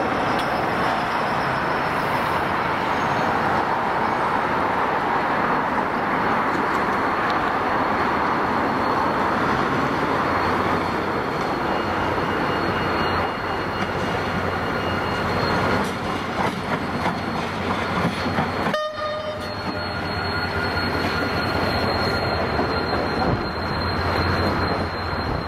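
General Motors diesel locomotive approaching and passing on the tracks: the engine's low steady drone and the noise of wheels on rail over a dense rushing background, which changes abruptly about three-quarters of the way through.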